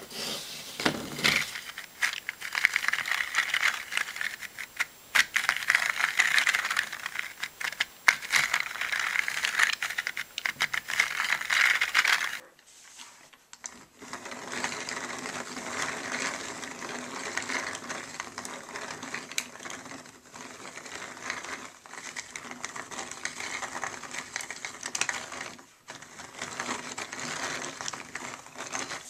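Hand-cranked 3D-printed plastic differential turning: its plastic bevel gears click and rattle continuously as the teeth mesh, with a brief gap partway through.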